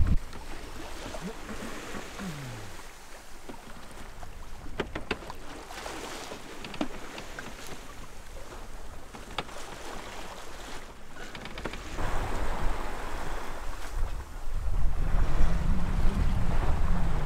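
Wind and water rushing past a sailboat under way at sea, with a few faint ticks near the middle. Wind buffeting the microphone grows much louder in the last few seconds.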